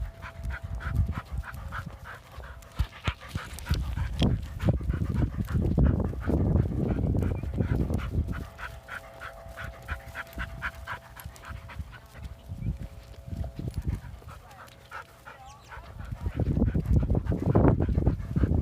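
A dog panting hard, about four quick pants a second, in two spells. Stretches of loud low rumbling noise come and go twice and are the loudest sound.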